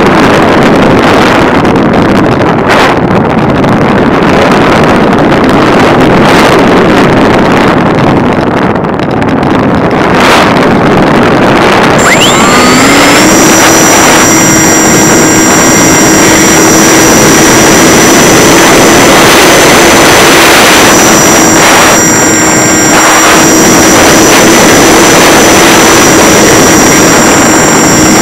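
Wind rushing over an RC plane's on-board microphone as the Multiplex EasyStar glides, then about twelve seconds in its electric pusher motor and propeller throttle up, the pitch rising quickly and settling into a steady whine over the wind.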